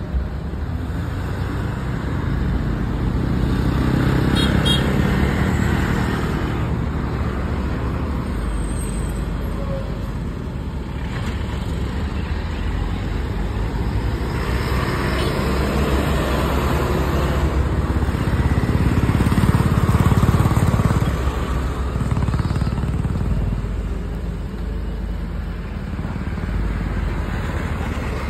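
Road traffic passing: motorcycles and a lorry going by, a steady low rumble that swells twice.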